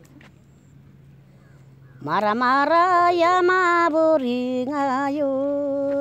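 An elderly woman sings a Tamang selo folk song in a single voice. She comes in about two seconds in with a rising glide into long, wavering held notes.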